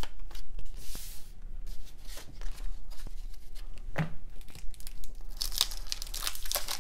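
Baseball cards being flipped through and squared into a stack, with light card-on-card clicks and a snap about four seconds in. From about five and a half seconds, a baseball card pack's wrapper crinkles loudly as it is picked up and torn open.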